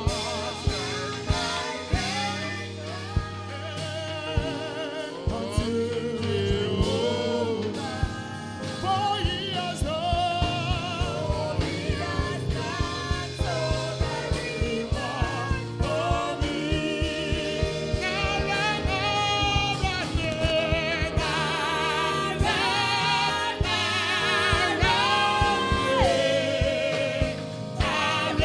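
Live gospel worship song: a man sings lead with vibrato while other voices join in, over a band with a steady bass and drum beat.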